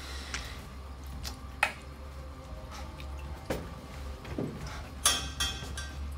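Separate drops of water dripping onto a tiled floor, a few single drips spaced a second or more apart, with a sharper, louder click about five seconds in, over a low steady hum.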